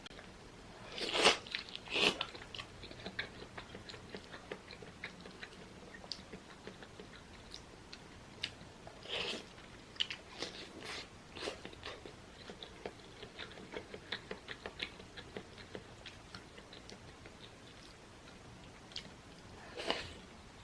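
Close-up eating sounds of a person chewing a mouthful of soupy rice with fried egg: many small wet clicks and smacks, with a few louder noisy bursts about a second and two seconds in, about nine seconds in and near the end.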